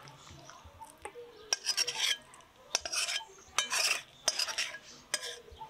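Metal spatula scraping and clinking against a pan while stirring thick chicken curry, in a few short bursts of scrapes and taps.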